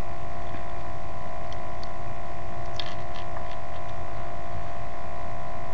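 Steady electrical hum over a low rumble, with a few faint light clicks of small plastic Lego pieces being handled partway through.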